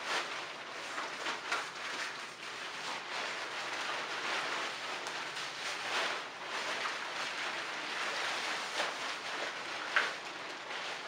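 Thin nylon fabric of an uninflated inflatable T-rex costume rustling and crinkling as it is pulled on and wrestled into place. A few sharper crinkles stand out, the loudest about ten seconds in.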